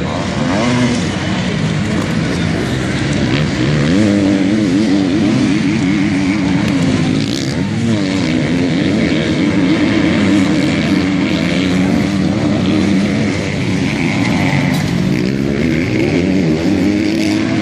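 Several motocross bikes racing, their engines overlapping and revving up and down continuously.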